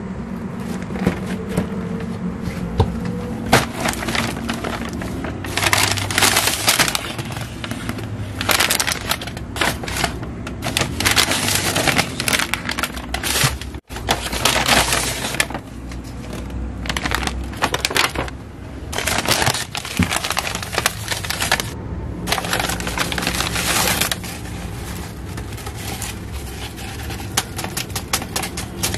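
Brown kraft paper bags rustling and crinkling in repeated bursts as a hand rummages inside among paper-wrapped bread rolls and pulls one out.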